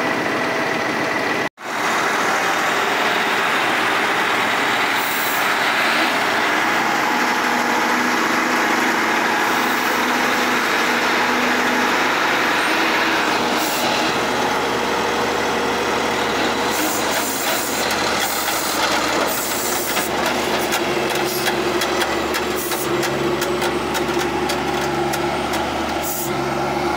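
Heavy diesel engines of a semi truck and a New Holland four-wheel-drive tractor running steadily under load as the tractor tows the stuck truck out of soft dirt by chain. Scattered clicks in the second half, with a brief cut-out of all sound about a second and a half in.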